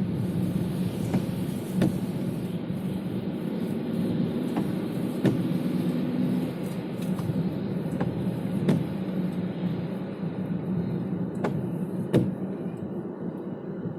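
A car driving, with steady, low road and engine noise, broken by occasional short sharp clicks at irregular intervals.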